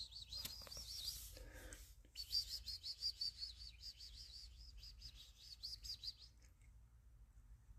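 A bird chirping: a fast, faint series of short high notes that stops about six seconds in.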